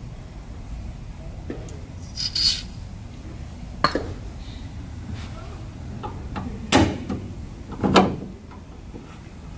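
A short hiss of spray grease from an aerosol can with a straw nozzle, about two seconds in. Then a few sharp metallic clicks and knocks as a gas strut is handled and offered up to a bay door, the loudest two near the end.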